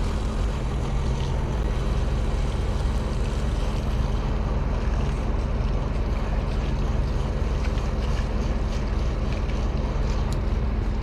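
Large engine running steadily at a constant speed, a low even drone with no change in pitch.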